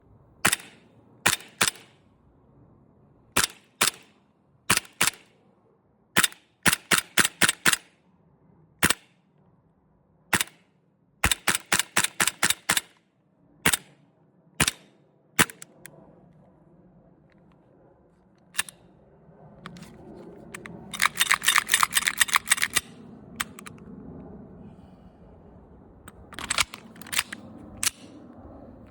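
VFC FNX-45 gas blowback airsoft pistol firing: sharp single shots and pairs, quick strings of five or six shots, and a longer fast string about two-thirds of the way through.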